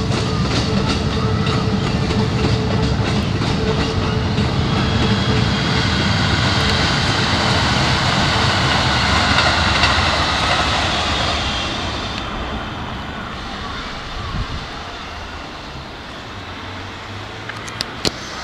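Keikyu 1000-series electric trains running past, wheels clattering in a steady rhythm over the rail joints. The running noise dies down about twelve seconds in, leaving a quieter rumble and a few sharp clicks near the end.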